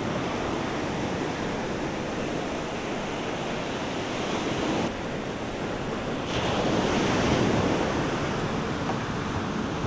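Ocean surf washing steadily against a rocky shore, swelling louder about six seconds in.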